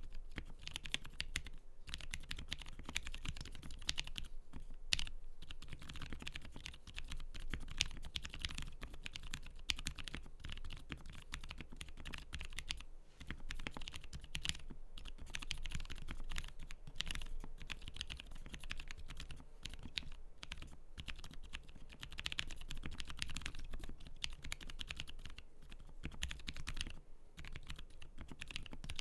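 Continuous fast typing on a mechanical keyboard with lubed Zealios 62g tactile switches and GMK-style keycaps, a dense run of keystroke clicks with a few brief pauses.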